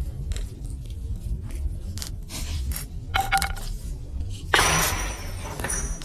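Channel intro sound effects: a low rumble under scattered crackles and clicks, then a loud burst of hiss about four and a half seconds in.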